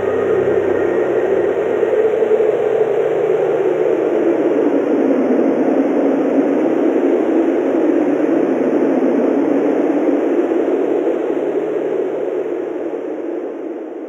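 Strong wind blowing steadily in a snowstorm, a deep rushing noise that fades out over the last couple of seconds. Faint gentle music dies away about a second in.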